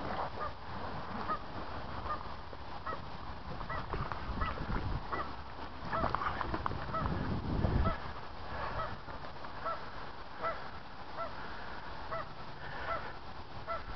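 A pair of geese honking: short calls repeated about twice a second, with a low rumble about halfway through.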